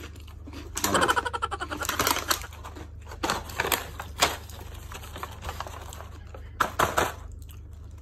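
Paper bag of microwave pork crackle crinkling and rattling as it is handled. A dense run of rapid clicks comes about a second in, followed by scattered crackles and a few sharp crinkles near the end.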